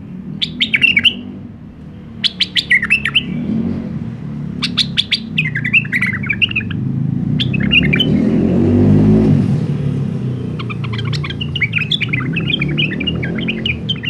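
White-eared bulbul (Iraqi bulbul) singing in short phrases of quick, warbling whistled notes, each phrase opening with a rapid run of clicks, about five phrases with pauses between. A low rumble swells and fades under the song about two-thirds of the way through.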